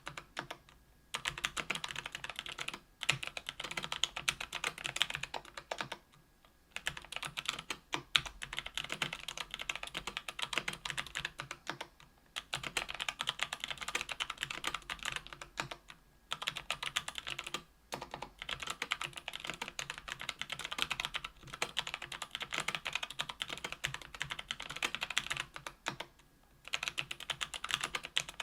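Fast, steady typing on a KBDfans Tofu 65% aluminium keyboard with lubed Kailh BOX Brown tactile switches and lubed screw-in stabilizers, a dense run of key clicks broken by short pauses every few seconds.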